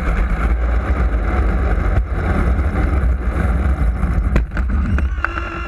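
Small RC aerobatic plane rolling on its wheels over asphalt: a rough rumble of the wheels and wind on the camera mounted beside them, with a couple of sharp clicks. Near the end the rolling rumble drops away and a steady whine from its electric motor is left.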